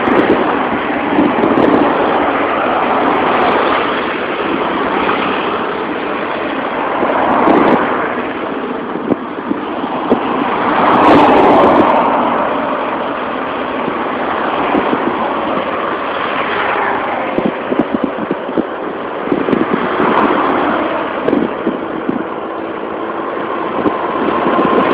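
Road traffic on a busy highway: a run of vehicles passing one after another, each swelling and fading, about five times.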